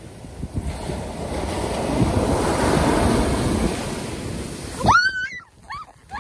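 Surf washing up a sandy beach: the rush of a wave swells over the first few seconds and then ebbs. About five seconds in, the surf cuts off suddenly and a series of short, high yelping cries begins.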